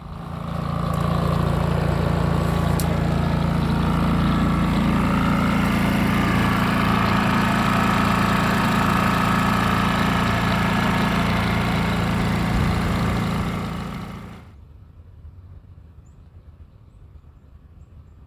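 An engine running loud and steady close by, coming up over about a second and dropping away about fourteen seconds in.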